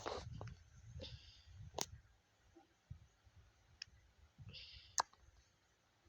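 Quiet scattered sharp clicks, about five in six seconds, with soft low thumps and a couple of brief hisses.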